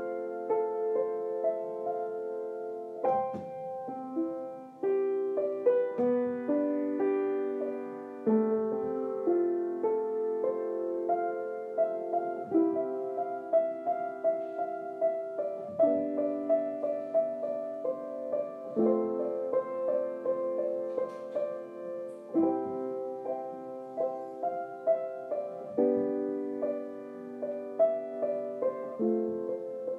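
Slow, gentle solo piano music, with a new held chord struck about every three seconds.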